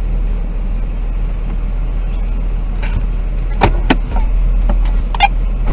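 Truck engine running at low speed, heard from inside the cab as a steady low rumble. A few sharp clicks come a little past halfway, and a short sharper sound follows about a second later.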